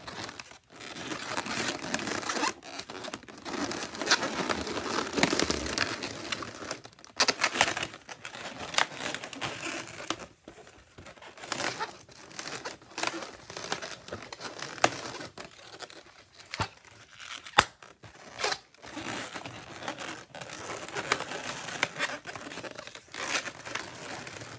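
Inflated latex modelling balloons (a geo and 260s) rubbing, squeaking and crinkling against each other as they are twisted and tied by hand. A few sharp snaps come through, the loudest about three-quarters of the way through.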